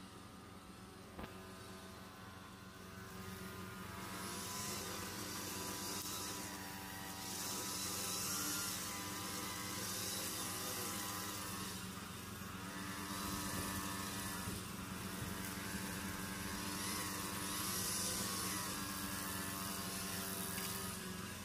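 Petrol string trimmer engine running steadily while its line cuts grass, with a swell of hissing every few seconds as it bites into the edge.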